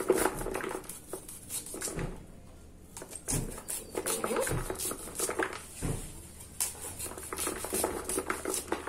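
A knife scraping kernels off an ear of fresh white corn in quick repeated strokes, the cut kernels pattering into a plastic basin. There is a short pause about two seconds in.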